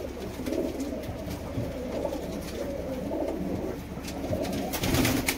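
Domestic pigeon cooing repeatedly in low, throaty phrases, with a short scratchy noise near the end.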